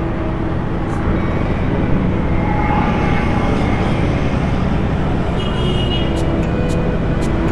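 Steady road traffic noise, a continuous rumble of vehicles with a few faint steady tones over it.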